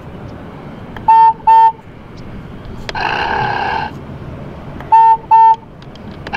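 Electronic horn sound of a 12-volt Fisher-Price Harley-Davidson Power Wheels ride-on motorcycle, set off from its dashboard buttons and played through the toy's small speaker: a double beep-beep about a second in and again about five seconds in. Between the two, a buzzier sound effect from the toy plays for about a second.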